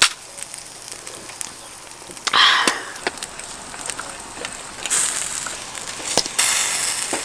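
Meat skewers and asparagus sizzling on a wire grill over a charcoal fire, with scattered crackles and pops. A louder hiss of sizzling comes in about five seconds in and again near the end. A sharp click right at the start as a drink can's tab is pulled.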